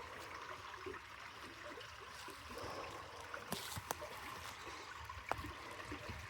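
Water running steadily through a just-unclogged culvert pipe, freed of beaver-dam debris and now draining the flooded ditch. A few short knocks come through in the second half.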